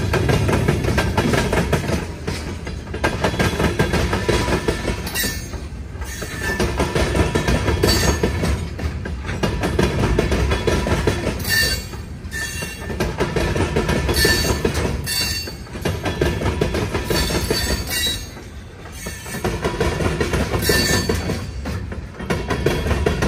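Freight cars rolling past, their wheels banging over a railroad diamond crossing in repeated clusters of heavy clacks, with brief wheel squeals.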